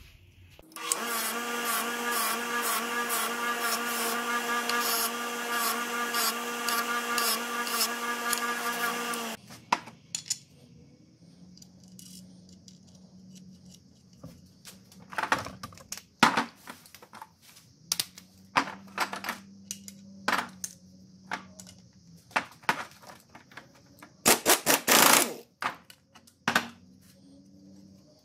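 A small electric power tool runs at a steady high pitch for about eight seconds, cleaning up a small metal stopper piece, then stops. Short clicks and knocks of small metal parts being handled follow, with a louder burst of noise near the end.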